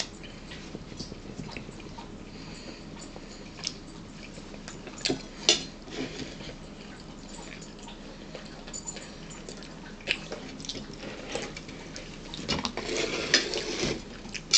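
Metal cutlery clinking and scraping on a plate and a bowl while people eat, with scattered sharp clicks, a loud cluster of them about five to six seconds in and busier clatter near the end.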